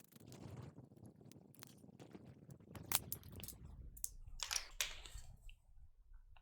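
Quiet handling noise of small electronic parts and tools on a workbench: low rustling with a few sharp clicks and ticks, the loudest about three seconds in and a short cluster between four and a half and five seconds.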